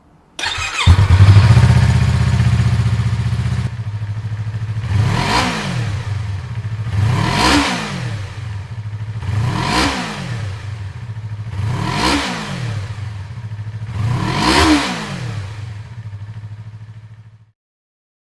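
Yamaha YZF-R25 parallel-twin engine running through an SP Tadao POWERBOX megaphone silencer. It idles, the idle settles lower after a few seconds, and then it is blipped five times, each rev rising and falling back, about every two and a half seconds. The sound stops near the end.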